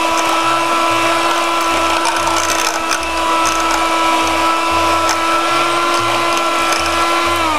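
Handheld electric mixer beating eggs in a bowl, its motor running at a steady pitch. Near the end it is switched off and the pitch falls as it winds down.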